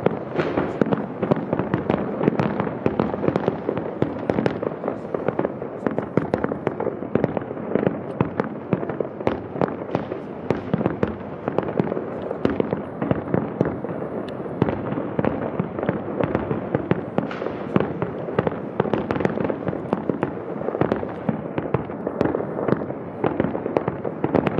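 Aerial firework barrage: a dense, unbroken run of bangs and crackling from many shells bursting together, with no pause.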